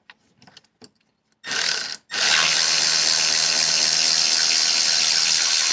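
Milwaukee cordless power tool's motor running, turning a T40 Torx bit counterclockwise to back out a screw: a short burst about a second and a half in, then a steady run with a low hum under a bright whir.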